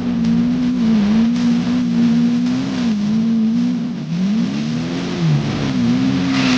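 Off-road 4x4's engine pulling hard under load, its pitch mostly steady with small dips. About four seconds in it rises, then drops sharply and recovers.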